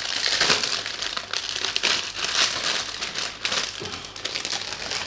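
Clear plastic bags holding model-kit runners crinkling and crackling as they are handled. The crinkling thins out near the end.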